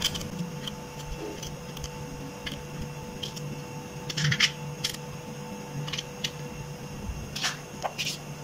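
Kitchen knife cutting small brinjals held in the hand: a dozen or so irregular crisp clicks and snicks as the blade goes through the skin and flesh, over a faint steady hum.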